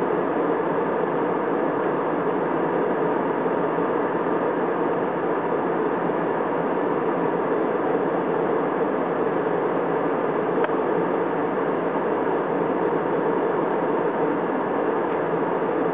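Steady cabin noise of a jet airliner in flight, an even rush of engine and airflow noise heard from inside the cabin.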